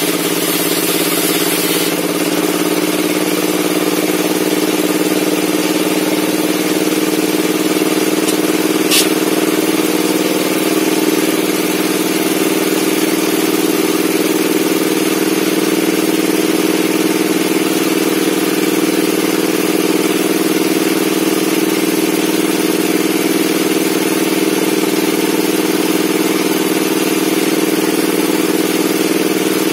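Table saw (sirkel duduk) machine running steadily with an even, constant hum, and a brief sharp sound about nine seconds in.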